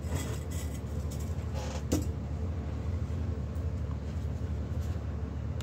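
Steady low background hum, with a few brief scraping knocks in the first two seconds as a wooden sanding stick and a small silver pendant are handled on a workbench.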